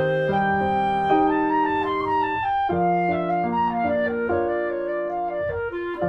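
Instrumental music: several held notes sounding together as chords, with a melody line above, the notes changing about once a second.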